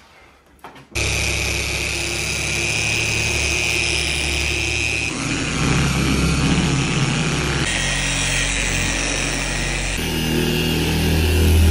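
Handheld electric car polisher with a foam pad, running steadily against the paint of a hood: a continuous motor whine with a high steady tone. It starts about a second in and shifts abruptly a few times where clips are cut together.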